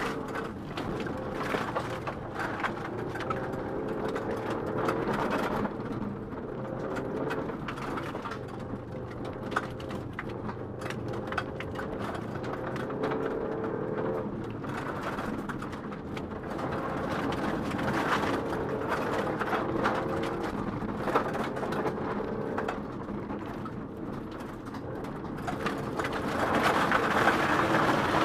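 Rally car engine heard from inside the cabin, revving up and down through the gears at speed on a dirt stage, with many small clicks and rattles from the car and the loose surface. It is loudest near the end.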